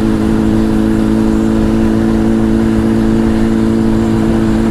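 Honda CBR1000 inline-four engine through a Two Brothers exhaust, running at a steady engine speed while cruising, with wind noise on the helmet mic.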